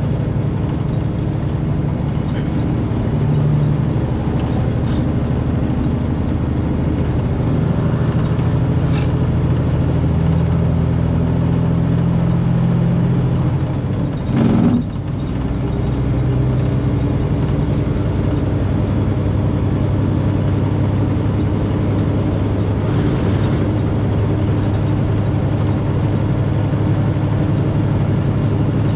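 Semi truck engine running steadily under way, its low drone changing note around the middle. Partway through there is one brief, loud burst.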